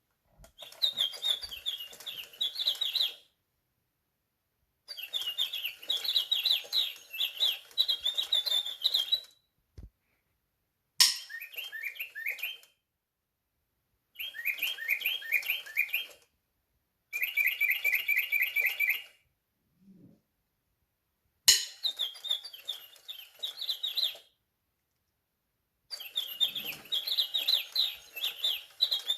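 Sound-activated toy blue jay playing recorded bird chirps: seven separate bursts of quick, repeated high chirping, each a few seconds long, with silence between them. Two of the bursts open with a sharp click.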